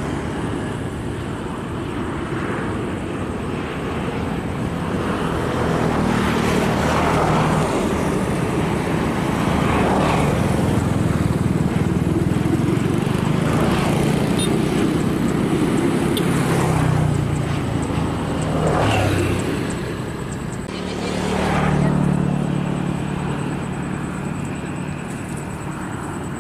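Jet engine noise of a Boeing 737-900ER on final approach for landing, a steady rumble that grows louder through the middle and eases off. About twenty seconds in, a second airliner, an Airbus A320 on approach, takes over and swells again.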